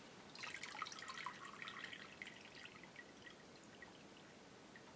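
Buttermilk splashing and dripping back into a plastic bucket as a hand scoops freshly churned butter out of it. A soft burst of wet splashes begins about half a second in and thins to a few scattered drips by about three seconds.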